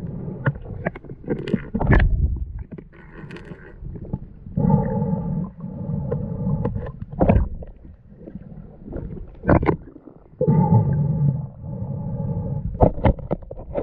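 A diver breathing underwater: a rumbling, gurgling burst of exhaled bubbles about every six seconds, with sharp clicks and knocks in between.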